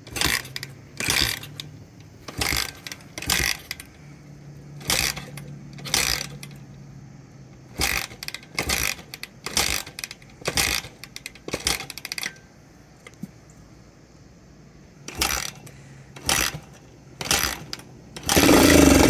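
Suzuki DR-Z125 dirt bike being kickstarted over and over: sharp metallic clacks of the kick lever, often in pairs, while the single-cylinder four-stroke engine turns over without firing. Near the end the engine catches and starts running loudly.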